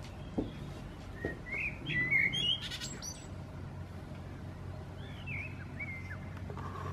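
A small songbird chirping in quick, twittering phrases, one burst about a second in and another about five seconds in.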